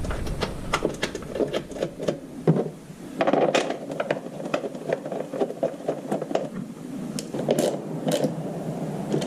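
Plastic body panels and their plastic clips and screws on a 2005 Honda Metropolitan scooter being handled and fitted. A quick run of small clicks and taps with plastic scraping and rattling, denser from about three seconds in.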